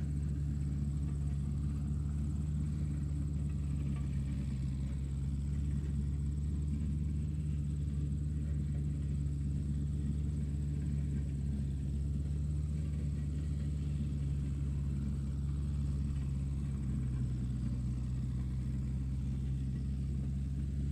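Tractor engine running steadily at a constant speed, a low-pitched even drone with no revving or changes.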